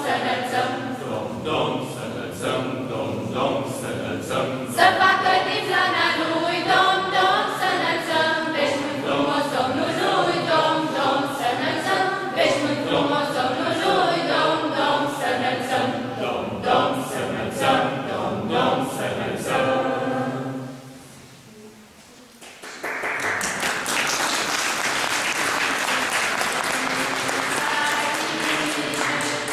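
A small mixed group of young voices singing a Christmas carol unaccompanied. The song ends about two-thirds of the way through, and after a brief pause the audience applauds.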